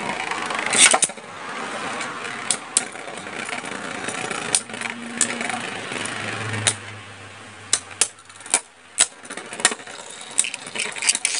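Beyblade Burst spinning tops, one fitted with a marble tip, whirring and scraping across a plastic basin floor, with irregular sharp clicks as they knock against each other and the basin wall.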